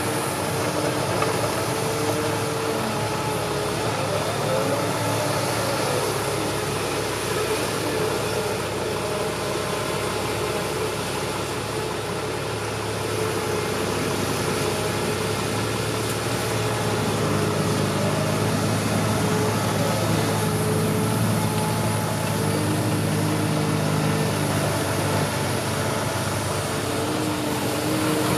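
Heavy diesel engines of loaded six-wheel dump trucks and a CAT excavator running. A deeper, slightly louder engine sound builds from a little past halfway.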